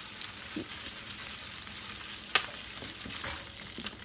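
Jiffy Pop foil pan sizzling steadily on a hot stovetop as it is shaken, the oil heating toward popping, with one sharp click about two and a half seconds in.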